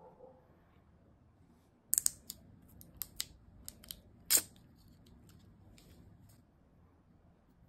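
Sunglasses being handled: a run of sharp clicks and taps as the hinged arms are folded and the frame is moved about in the hands, the loudest click a little over four seconds in, with a few fainter ones afterwards.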